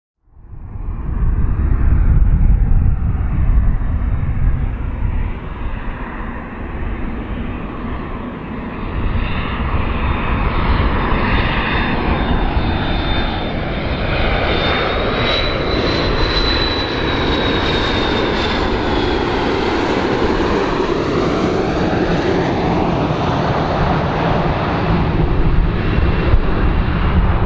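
McDonnell Douglas MD-80-series airliner on landing approach, its tail-mounted turbofans giving a steady jet roar. A high whine grows strongest about halfway through and then falls slightly in pitch as the plane passes.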